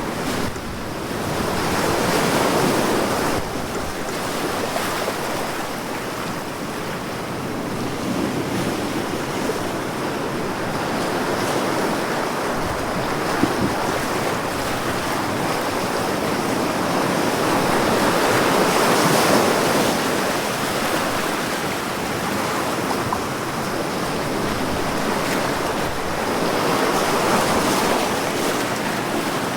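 Big ocean waves breaking on the shore: a continuous surf wash that swells and ebbs, with louder surges as each wave crashes, a few times over the stretch.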